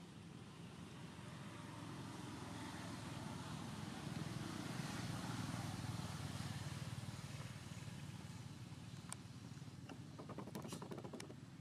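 Faint low rumble that swells and then eases off over several seconds, like distant traffic, with a short run of sharp clicks near the end.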